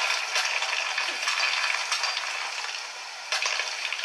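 Video game sound effects: a steady crackling hiss of environmental ambience with scattered scrapes and rustles, as the game character climbs a rock face. It grows quieter about three seconds in.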